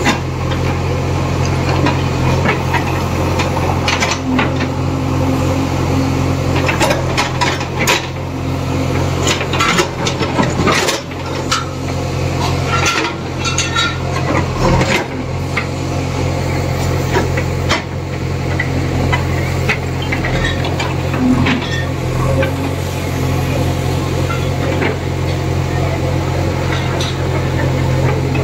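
JCB backhoe loader's diesel engine running steadily, while its bucket scrapes and shoves broken bricks and concrete rubble, giving clattering knocks that come thickest between about 4 and 15 seconds in.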